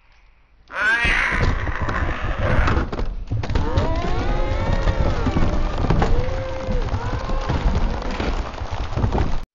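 Slowed-down cartoon soundtrack: a loud, dense din of low thuds and booms mixed with wavering, gliding pitched sounds. It starts suddenly and cuts off abruptly near the end.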